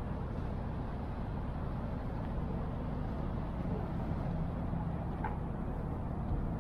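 Steady low rumble of city street ambience with distant traffic, and a brief faint high chirp about five seconds in.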